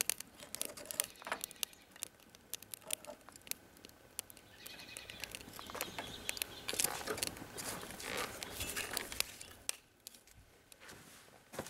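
Small sticks of firewood clattering as they are dropped into the metal chimney of a StoveTec rocket stove, loading it with fuel: scattered sharp clicks and knocks that come thicker from about halfway through.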